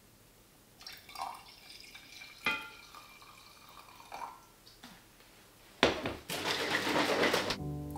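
Coffee poured from a glass carafe, with glass clinks and dribbling liquid. A sharp clack comes about six seconds in, followed by a short rush of pouring noise, and acoustic guitar music starts near the end.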